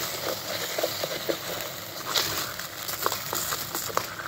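A hot steel pot of sugared roti choori sizzling with a steady hiss as it is stirred over a charcoal clay stove, with scattered light clicks.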